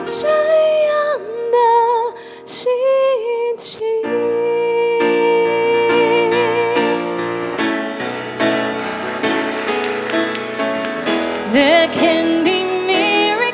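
A woman singing a gospel pop song into a handheld microphone over instrumental accompaniment, holding one long note in the middle. Near the end a second woman's voice takes over.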